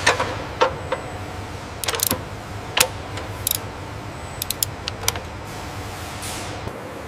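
About a dozen light mechanical clicks and taps at irregular intervals, over a steady low background hum.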